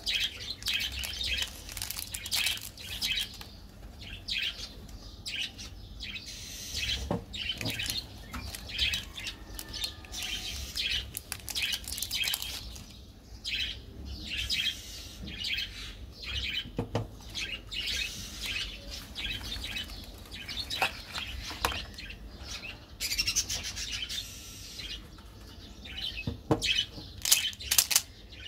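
Shiny plastic candy-bar wrappers crinkling and tearing open in quick, irregular crackles as they are handled and unwrapped.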